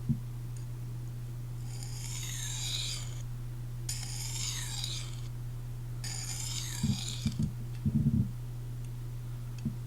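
Magnacut steel edge of a Chris Reeve Sebenza drawn across a sharpening stone in three long, hissing strokes: light passes to flip the burr. A steady low hum runs underneath, and a few soft knocks come near the end.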